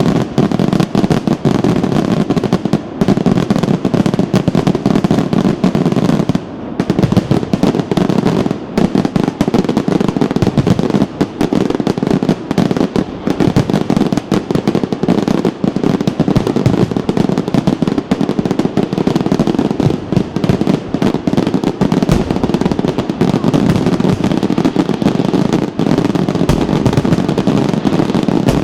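Aerial fireworks display: a dense, unbroken barrage of rapid bangs going off one after another with hardly a pause.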